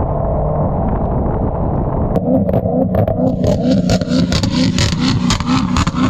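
Modified C7 Corvette Grand Sport's V8 exhaust. A steady low driving rumble, then about two seconds in a harsher, rapidly pulsing exhaust note with crackling as the car pulls away close by.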